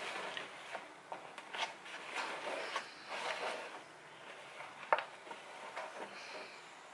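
Hands squeezing and turning sticky bread dough in a plastic bowl: irregular squelching and rustling, with light clicks from the bowl and one sharp knock about five seconds in.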